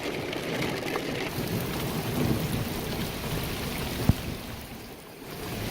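Heavy rain falling steadily, an even hiss of downpour, with one sharp knock about four seconds in and a brief lull just after.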